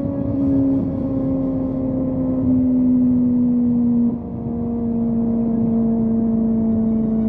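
Kawasaki ZX-25R's inline-four engine, fitted with a Yoshimura exhaust, running at high revs under way, its pitch sinking slowly as the speed eases, with a brief dip in loudness about four seconds in.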